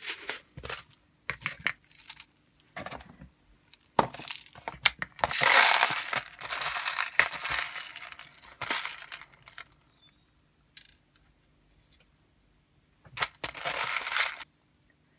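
Hands working at a 3D-printed plastic robot base: a run of sharp metallic clicks and clinks, like steel ball bearings rattling into the plastic bearing race, mixed with crinkling and rustling. A longer crinkly stretch comes about a third of the way in, and a shorter one near the end.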